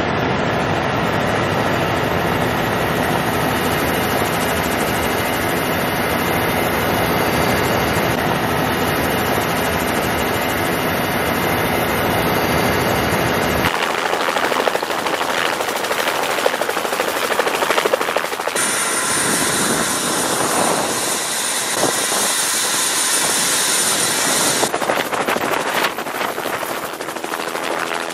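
Bell 206 turbine helicopter running: steady rotor and turbine noise. The sound changes character at cuts about 14, 18 and 25 seconds in, with a steady high turbine whine through the middle stretch.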